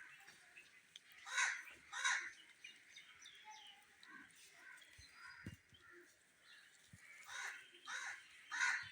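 Indian ringneck parrot giving harsh squawks: two about a second and a half in, then three more near the end, with softer short notes between.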